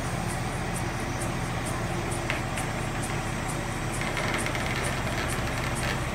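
Vehicle engine running steadily at low speed, hauling a large wooden vat on a flatbed, with music playing and a steady beat ticking about twice a second.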